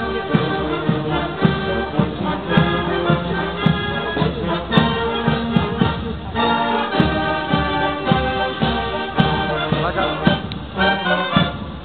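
Marching brass band playing a march with a steady drum beat, about two beats a second.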